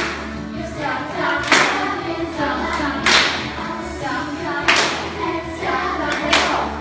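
Music with group singing, with a sharp clap-like hit about every one and a half seconds keeping the beat.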